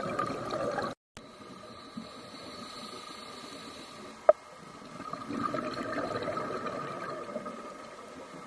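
Underwater bubbling and rushing water noise on a scuba dive, swelling in two long surges like a diver's exhaled bubbles from the regulator. The sound cuts out briefly about a second in, and there is one sharp click about four seconds in.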